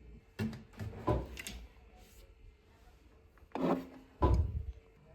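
A few short knocks and rubbing sounds as kitchen containers and utensils are handled: a cluster about half a second to a second and a half in, and two more near the end.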